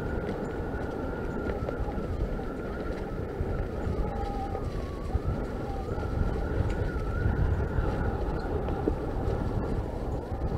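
Norco Fluid FS3 full-suspension mountain bike rolling along a leaf-covered dirt trail: steady tyre rumble and rattle carried through the mounted camera, with a faint wavering high whine over it.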